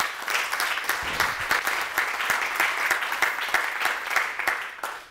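Audience applauding: a dense patter of many hands clapping that dies away shortly before the end.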